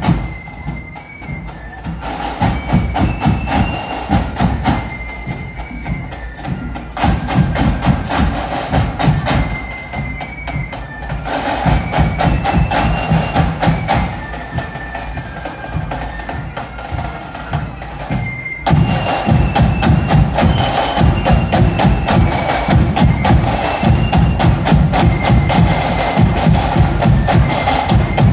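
Marching flute band playing a high melody over snare and bass drums. It grows louder as it approaches, with a sudden step up in loudness about two-thirds of the way through.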